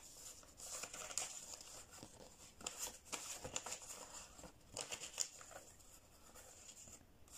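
Faint, irregular rustling and crinkling of Kenyan shilling banknotes being handled and the plastic envelope pages of a ring binder being leafed through.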